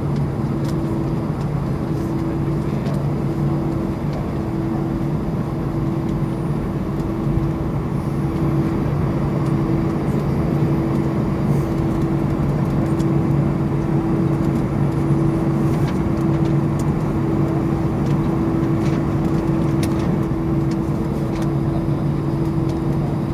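Cabin noise of an Airbus A319 taxiing after landing: a steady rumble from its jet engines at idle, with two low steady hums, a little louder from about eight seconds in.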